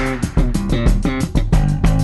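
Background music with a steady beat, led by guitar and bass guitar.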